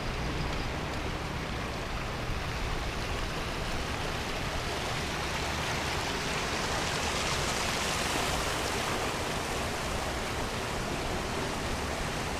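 Steady rushing wind noise on the microphone, swelling and growing hissier through the middle, then easing slightly.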